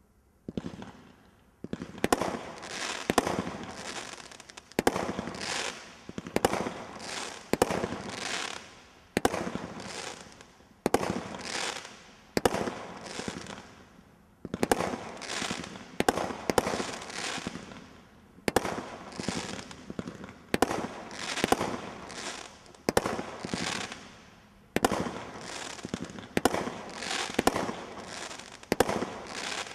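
A 19-shot Category 2 combination roman candle firing a barrage. Sharp shots go off roughly every second or two from about two seconds in, each followed by crackling glitter stars that die away over about a second.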